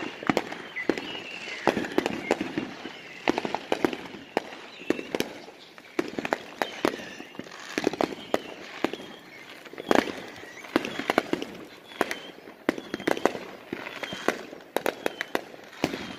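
Aerial fireworks bursting overhead: a long string of sharp bangs and pops, some single and some in quick clusters, with no real pause.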